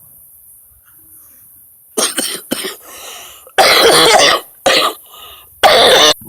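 A person coughing several times, starting about two seconds in, with the three loudest coughs in the second half.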